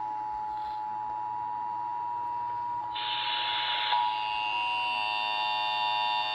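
Emergency Alert System attention signal: a steady two-tone alarm, pitched just under 1 kHz. About three seconds in, a one-second rush of noise cuts across it, and from about four seconds more steady tones at higher pitches join the alarm.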